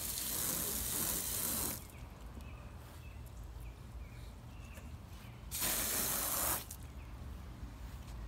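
Garden hose spray nozzle spraying water onto a car in two bursts: one about two seconds long at the start, and a shorter one of about a second past the middle.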